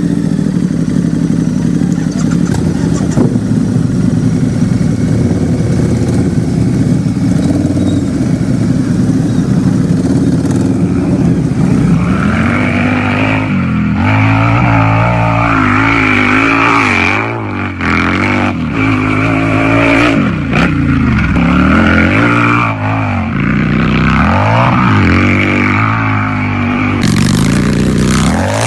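Harley-Davidson V-twin motorcycle engine idling steadily, then, a little before halfway, revved up and down over and over with the pitch rising and falling.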